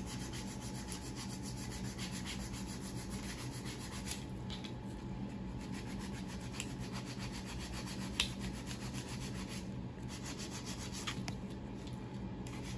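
Hand nail file and buffer rasping across fingernails in rapid, steady back-and-forth strokes as the nails are shaped. A single short click about eight seconds in.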